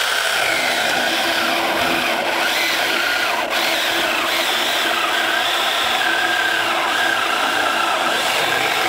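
Seyvum 6-inch mini cordless electric chainsaw running at its single fixed speed, its chain cutting a round off a ponderosa pine log. The motor and chain sound holds steady throughout the cut.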